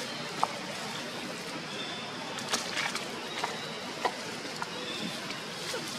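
Outdoor ambience: a steady hiss with several short, sharp clicks or crackles scattered through it, and a faint thin high tone now and then.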